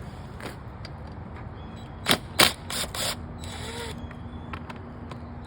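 Sharp clicks and knocks of hand tools and plastic motorcycle parts being handled. The loudest two come about two seconds in, followed by a couple of softer knocks and a brief rustle.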